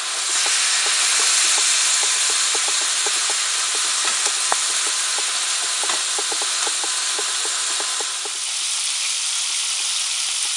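Chunks of meat sizzling in hot olive oil in a large steel paella pan, a steady hiss, with many small clicks and scrapes as a metal slotted spatula stirs them. The clicking stops about eight seconds in, and the sizzling carries on a little softer.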